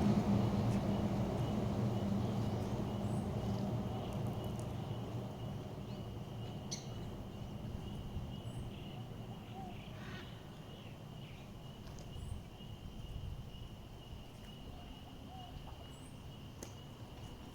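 Rural outdoor ambience: a low rumble that fades away over the first few seconds, then a steady high insect drone with faint bird chirps every few seconds.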